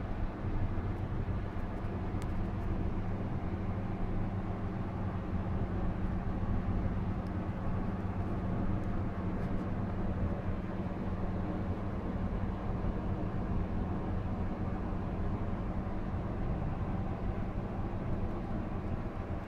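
Steady electrical hum from a 1985 Thyssen hydraulic elevator controller cabinet of relays and contactors: a low drone with a higher overtone, over an even, unchanging noise.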